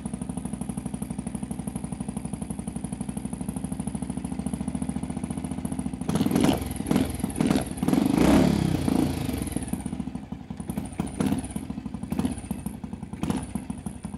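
A 1962 Triumph Tiger Cub's small single-cylinder four-stroke engine, just started, idling with a steady rapid beat through a stainless exhaust with only a tiny muffler. From about six seconds in it is revved in several throttle blips that rise and fall, the loudest near the middle, then it drops back to an uneven idle.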